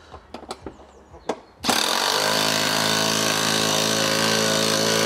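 DeWalt cordless impact wrench hammering a seat-frame bolt tight, starting about one and a half seconds in and running steadily at one pitch to the end. Before it, a few light metal clicks.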